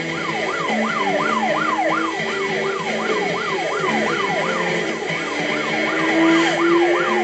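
Cartoon police car siren wailing rapidly up and down, about three sweeps a second, over a low steady tone, heard through a TV speaker.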